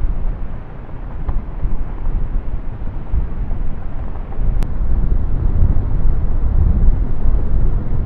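Hurricane-force wind gusting across the microphone: a loud, low rumble that swells and eases, growing stronger about three seconds in.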